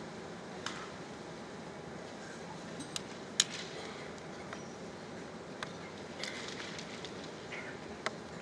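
Low steady murmur of a large arena crowd, with scattered sharp clicks and taps, the loudest about three and a half seconds in.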